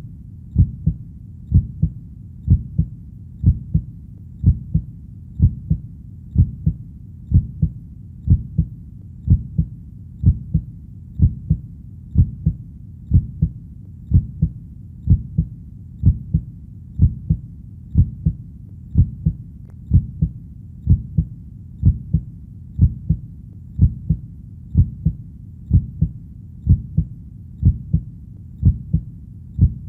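Heartbeat: a slow, steady lub-dub, each beat a pair of low thumps, about one beat a second, over a steady low background rumble.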